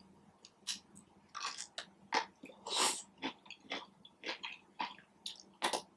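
A person chewing food in the mouth, a string of short, irregular chewing sounds.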